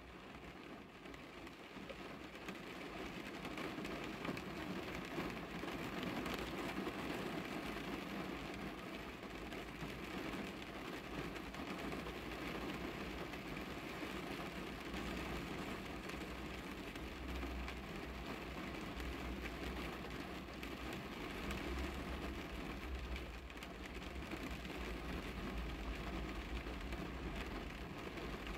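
Rain falling on a car's glass and body, heard from inside the car, growing louder over the first few seconds and then steady. A low rumble runs underneath.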